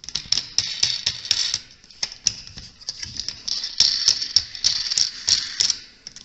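Rapid, irregular metallic clicking and rattling of antenna mounting hardware as a wing nut is spun down a bolt on the boom clamp.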